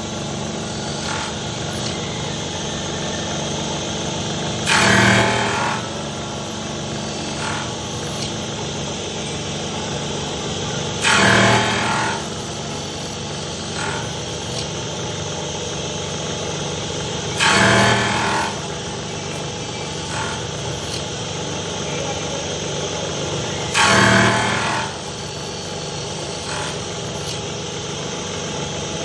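Automatic special-purpose milling machine running while it mills a steel shaft, with a steady machine hum. About every six seconds a louder, harsher burst lasting about a second rises over the hum, four times, as the cutter works the shaft in repeating cycles.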